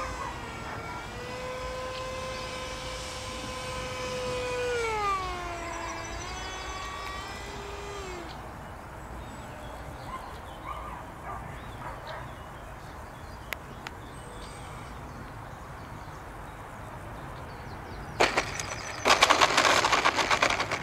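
Radio-controlled scale model warplane's motor whining steadily as it flies, dropping in pitch about four to six seconds in and then fading. Near the end, a loud scraping rattle as the model touches down and slides on the asphalt runway.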